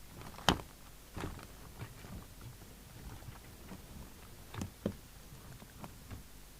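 Scattered light clicks and knocks of small tools and parts being handled on a workbench, with a sharp click about half a second in and two more knocks close together near the end.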